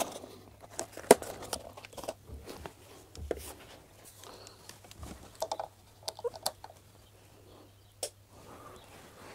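Scattered handling clicks and knocks, the loudest about a second in: a plastic tub of metal washers being moved and a mains plug being picked up and plugged in. The food chopper's motor is not running yet.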